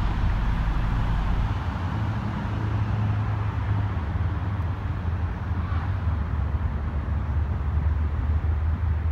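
Steady low rumble of motor vehicles.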